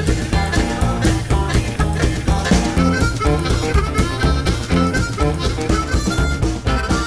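Background music: a harmonica tune over guitar and a steady bass beat.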